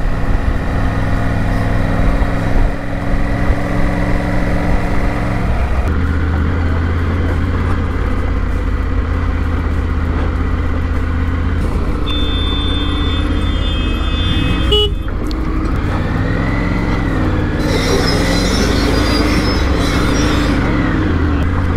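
Triumph Tiger adventure motorcycle's three-cylinder engine running under way with wind noise. The engine note is steady at first and drops about six seconds in as the bike slows onto loose gravel. Near the end the note rises and falls with the throttle at walking pace, with gravel noise from the tyres.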